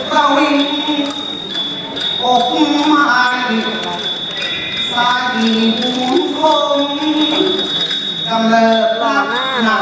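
A male likay lead singing a Thai likay melody, holding long notes with wavering, ornamented pitch. A light metallic jingling runs under the voice.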